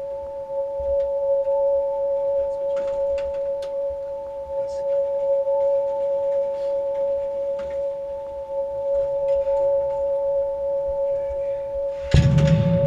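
Silo personnel elevator running, a steady hum at two pitches, with scattered light clicks and rattles. A loud burst of noise comes near the end.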